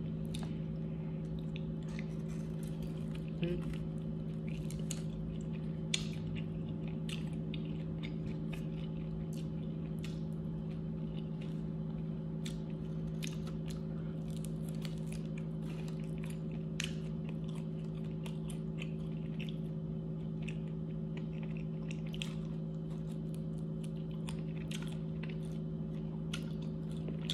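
Close-up mouth sounds of someone eating chicken wings: chewing and biting, with many short irregular clicks and crunches, over a steady low hum.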